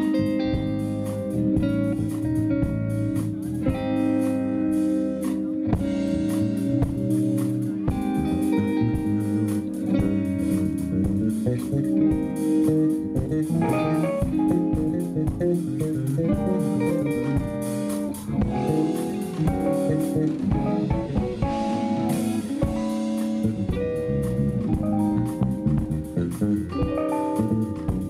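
Live instrumental jazz-funk band playing: electric guitar and five-string bass guitar over a drum kit, with keyboards.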